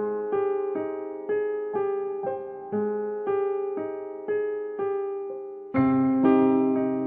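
Background music: a gentle electric piano playing a repeating pattern of notes about two a second, each note fading, with a fuller, lower chord coming in near the end.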